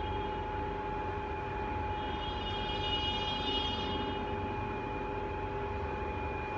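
Schindler freight lift car travelling upward: a steady running hum with a constant tone, joined for about two seconds in the middle by a higher whine and hiss that swells and fades.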